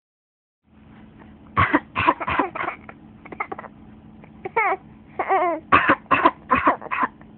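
Repeated short coughs in quick fits, starting about a second and a half in. A couple of brief vocal sounds with wavering pitch come in the middle.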